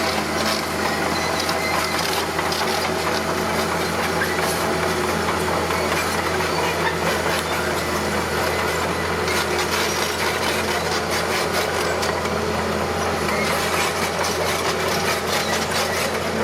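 Bulldozer's diesel engine running steadily under load while pushing soil, with dense clattering and crunching that thickens about halfway through.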